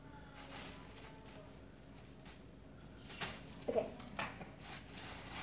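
Plastic grocery bag rustling and crinkling as it is pulled open by hand, with a few sharper crackles about three to four seconds in and a brief squeak among them.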